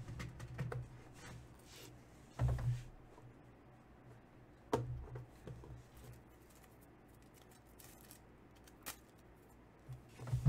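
Aluminium briefcase-style box of Panini Flawless basketball cards being handled and unlatched: a few scattered sharp clicks and knocks from its metal latches and shell. The loudest is a dull knock about two and a half seconds in.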